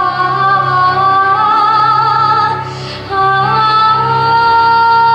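Wordless female vocalise: the mermaid's voice singing long held notes with vibrato, drawn away by the sea witch. The singing breaks off briefly about three seconds in, then resumes on a rising, held note over a steady low hum.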